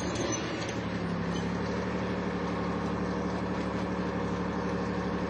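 Armoured military vehicle's engine running with a steady drone, settling into an even hum about a second in.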